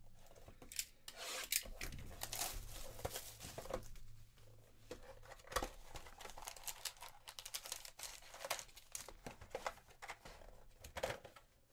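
A sealed cardboard box of trading cards being opened and handled by hand: wrapping torn, the cardboard rubbing and scraping, and foil card packs crinkling. Irregular rustles with a few sharp clicks.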